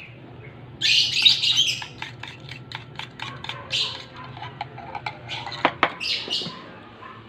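A fork scrapes and taps chocolate cake batter out of a bowl into a metal tin, giving a run of quick clicks and scrapes. Birds chirp in the background.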